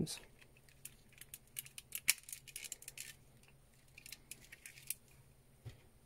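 Faint, scattered small clicks and light rattles of plastic and metal parts as an ignition lock cylinder assembly with 3D-printed adapters and its wiring is handled and turned over in the hands, most of the clicks in the first half.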